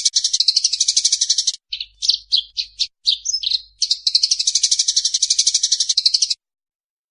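Eurasian tree sparrows giving the agitated calls of a fight: fast chattering runs broken by a few separate chirps. The sound cuts off suddenly near the end.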